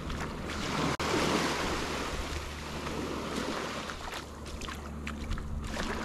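Gulf of Mexico waves breaking and washing up the beach: the surf swells about half a second in, peaks for a second or so, then fades away.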